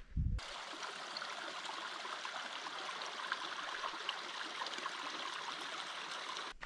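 Small mountain stream running over rocks, a steady even rush of water that starts abruptly a fraction of a second in and cuts off abruptly near the end.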